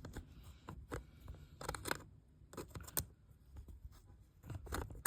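Faint, irregular scraping and clicking of metal on metal: a terminal screw on a fire alarm strobe being turned with the prong of an Apple 5W charger in place of a flathead screwdriver.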